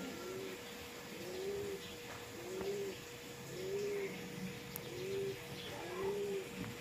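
A dove or pigeon cooing: a low note that rises and falls, repeated about once a second, over a faint steady tone.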